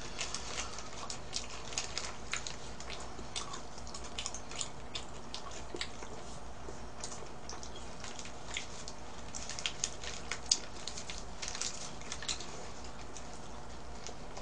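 Eating sounds: chewing and small wet mouth clicks on a fried chicken thigh burger, with its paper wrapper crinkling. Scattered sharp crackles, a few louder ones about ten seconds in, over a steady low hum.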